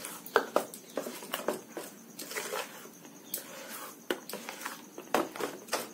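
Metal spoon stirring thick rice batter in a stainless steel bowl: irregular clinks and scrapes against the bowl with soft wet squelching.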